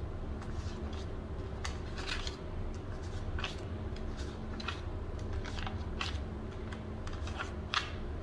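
Paper banknotes rustling and crinkling as a hand spreads and fingers a pile of euro notes on a table, in short irregular rustles, over a steady low hum.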